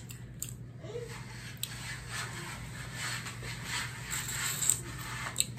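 Biting into and chewing a crispy, sauce-coated fried chicken wing close to the microphone: faint crackly crunching and mouth sounds, with a few sharp crunches.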